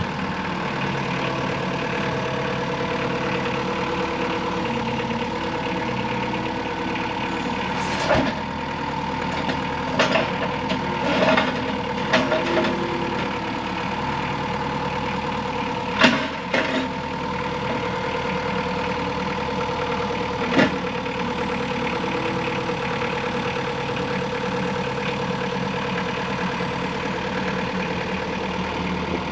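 Scat Trak 1500D turbo skid steer's diesel engine running at a steady speed. About eight seconds in and over the next dozen seconds come several sharp knocks and clanks.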